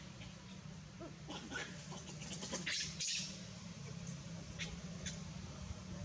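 Outdoor ambience: scattered short high chirps and calls over a steady low hum.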